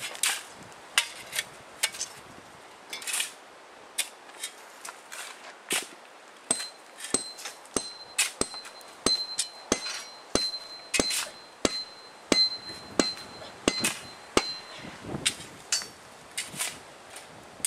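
Hammer blows on the steel of a railway track: a long run of sharp metallic strikes, irregular at about one or two a second, with a high ringing tone sounding over the blows through the middle of the run.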